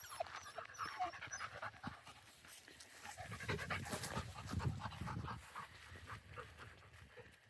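A Labrador retriever panting, loudest from about three to five and a half seconds in, with a few faint whimpers in the first second or so.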